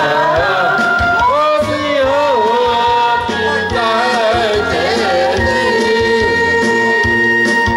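A voice singing a slow melody with long, wavering held notes over instrumental accompaniment with a steady low beat.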